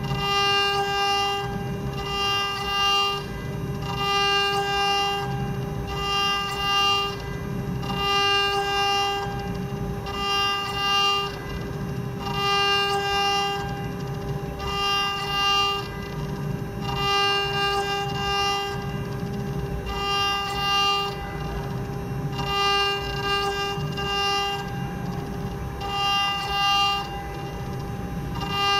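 STM1325 CNC wood router's spindle running with a steady high whine while its bit carves a relief into a wooden board. The cutting noise swells and fades about once a second as the bit works through the wood in repeated passes.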